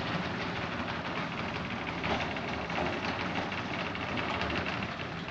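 Electric garage door opener running, driving the sectional door down its tracks with a steady mechanical rumble.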